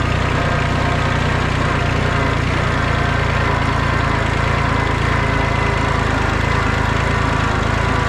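Kubota B20 backhoe's diesel engine running steadily.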